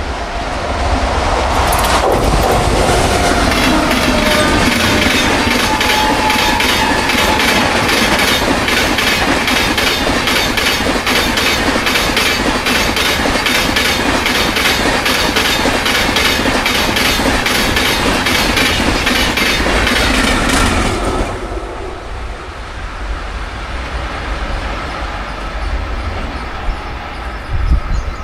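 Express passenger train's coaches rushing past at speed, their wheels clattering over rail joints in a rapid, even clickety-clack. The clatter stops abruptly about three quarters of the way through, leaving a much quieter distant train rumble.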